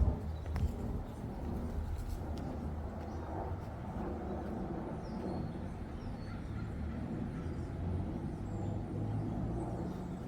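Outdoor ambience: a steady low rumble, with a few short high bird chirps and a couple of faint clicks in the first few seconds.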